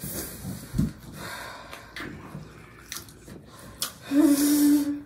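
A person breathing hard and sniffing through a mouth burning from very hot sauce, with a few small clicks. About four seconds in comes a loud, held moan.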